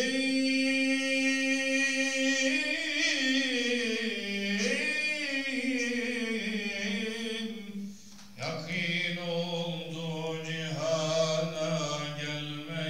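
A solo man's voice chanting a mevlid recitation, unaccompanied and melismatic. It holds a long note, then winds through ornamented turns. After a short break about eight seconds in, it starts a new phrase lower in pitch.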